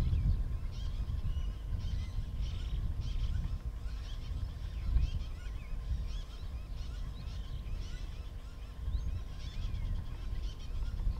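Many birds chirping and calling, with short, quick calls overlapping throughout, over a low steady rumbling noise.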